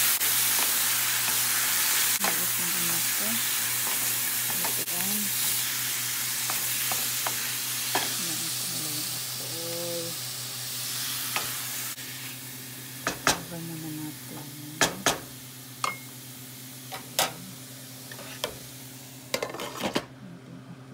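Chicken liver and onions sizzling loudly in a stainless steel pan while being stirred with a wooden spoon; the sizzle fades over the second half. From about halfway on come a series of light clinks and knocks, over a steady low hum.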